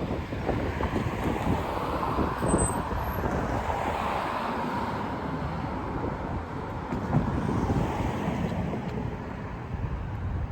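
Road traffic: a vehicle passes, its noise swelling and fading about four seconds in, over a steady traffic rumble with wind buffeting the microphone.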